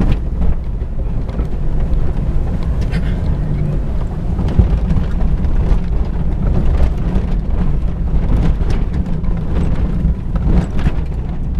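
The 1999 Isuzu Amigo's engine running steadily, with scattered knocks and rattles on top.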